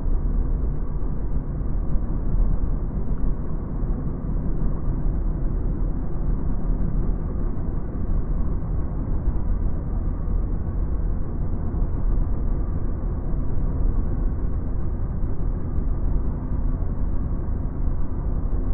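Steady road noise heard inside a car moving at speed on a dual carriageway: tyre and engine noise, heaviest in the low end, with no distinct events.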